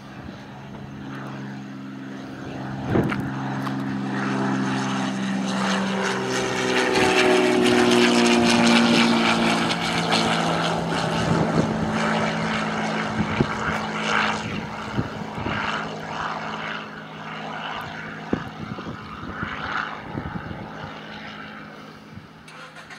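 Cessna 182 Skylane's piston engine and propeller climbing out after takeoff, growing louder as it passes, the pitch dropping as it goes by, then fading away.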